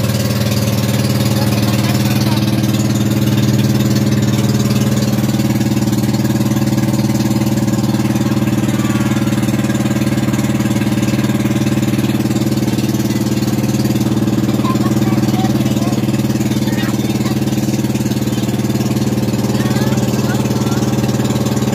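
Motor outrigger boat (bangka) engine running steadily under way, a loud even drone heard from on board.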